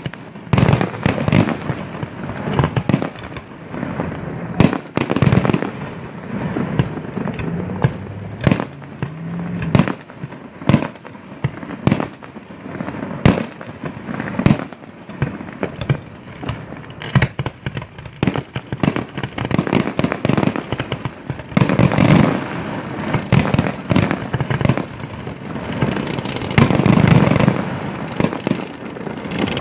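Fireworks display: large aerial shells, 3 to 8 inches, launching and bursting in quick succession. Many sharp, loud bangs follow one another, with denser, louder barrages about two thirds of the way in and near the end.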